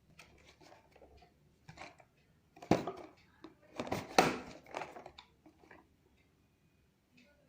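Packaging being handled and opened by hand: a run of clicks, taps and rustles, loudest in two clusters about three and four seconds in.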